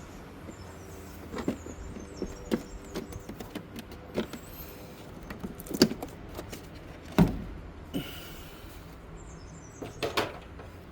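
Plastic engine-bay covers being unclipped and pulled off by hand: a series of irregular clicks and knocks, with a few louder knocks around six, seven and ten seconds in.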